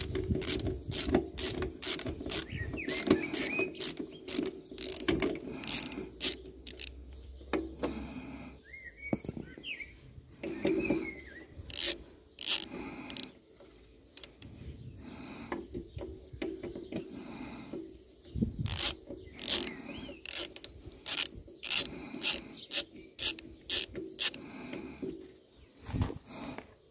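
Ratchet wrench clicking in short quick runs, with metal knocks, as bolts on a drum mower are worked.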